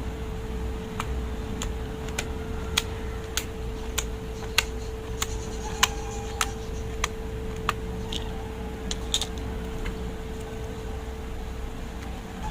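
Slime being worked by hand, giving crisp clicks about every half second that fade out after about eight seconds, over a steady hum.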